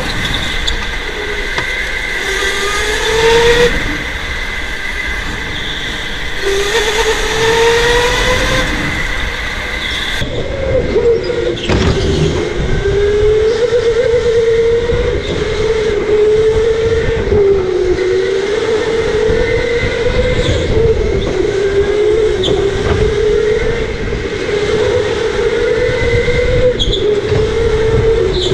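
Electric indoor go-kart running at speed, heard from on board: a motor whine that rises and falls in pitch as the kart speeds up and slows through the corners, over steady rumble and road noise.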